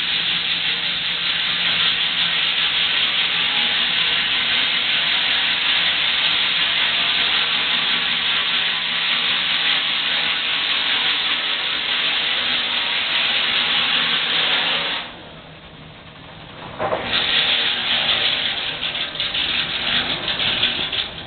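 Case steam engine and the sawmill it drives running with a steady loud hiss. The sound drops away for about two seconds about three-quarters of the way in, then comes back.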